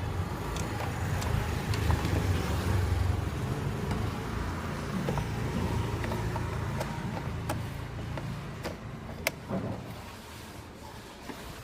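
Hyundai i20 petrol engine idling steadily after its ECM and coil wiring were repaired, running without the third-cylinder misfire. The engine hum becomes quieter after about nine seconds, with a sharp click about nine seconds in.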